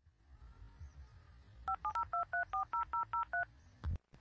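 Touch-tone telephone keypad dialing a number: about ten quick two-tone key beeps in a row, followed by a short low thump near the end.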